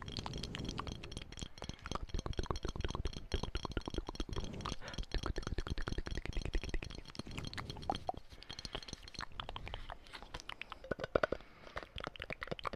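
Close-miked ASMR mouth sounds and tapping: a dense, rapid run of clicks and crackles, easing off a little for a few seconds near the end.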